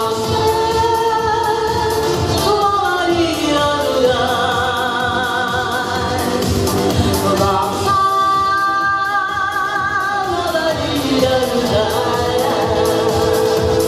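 A song performed to backing music, with long held sung notes with vibrato and pitch slides downward between phrases.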